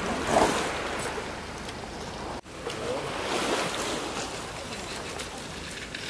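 Sea waves washing on the shore, the surf swelling twice, about three seconds apart. The sound drops out for an instant a little before halfway.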